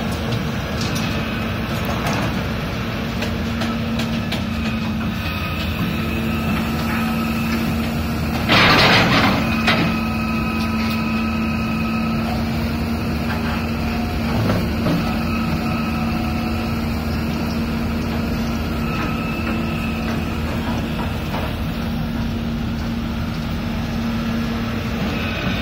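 CAT 320C hydraulic excavator's diesel engine running steadily under working load, with a whine that comes and goes as it digs and swings. A loud rushing burst lasting about a second comes about a third of the way in.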